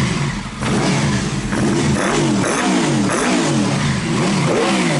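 Honda VFR800 VTEC V4 motorcycle engine revved in a string of quick throttle blips, about six, the pitch rising and falling each time. The cam chain tensioner spring has been readjusted and the engine runs with no cam chain rattle.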